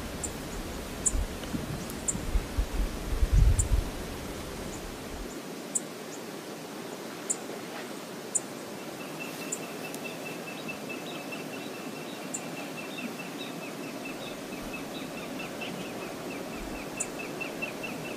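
Steady rush of water over Brooks Falls, with wind buffeting the microphone for the first few seconds. From about nine seconds in, a high, rapid trill of repeated notes runs over it, with occasional sharp high ticks.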